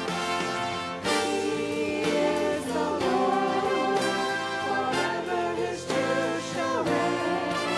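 Church music: instruments playing a hymn-like piece with singing voices joining in about two seconds in.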